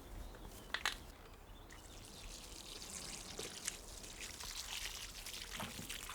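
A sharp knock about a second in, then liquid poured out in a steady splashing stream: fermented nettle fertiliser tea being poured out while it is diluted or given to plants.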